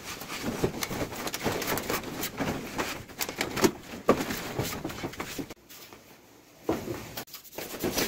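Plastering trowel scraping and tapping on fresh cement plaster on a concrete ceiling, in short, irregular strokes. The strokes stop for about a second past the middle, then start again.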